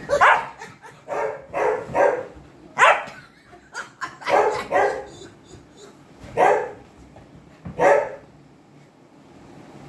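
White dog barking in play while it wrestles, about ten short barks in uneven clusters.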